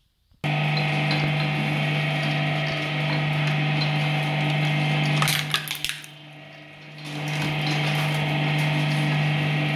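Industrial twin-shaft shredder running empty: a steady electric motor and gearbox hum that starts suddenly about half a second in. A few clicks come about five seconds in, the sound drops for about a second, then runs on steadily.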